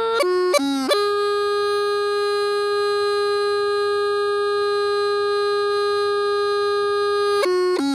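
Hmong raj bamboo flute playing a slow tune: a few short notes stepping down in pitch, then one long held note for about six seconds, then two short notes before the playing stops.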